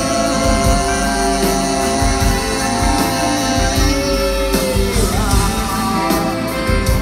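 Live rock band playing with saxophone, electric guitar and drums, and a man singing over it.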